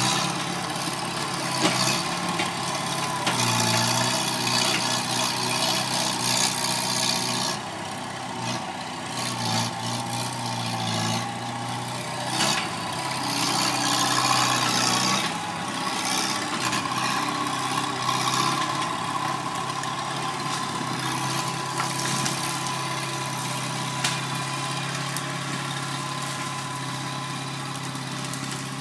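Bobcat skid-steer loader's engine running steadily, its pitch shifting now and then as the machine works.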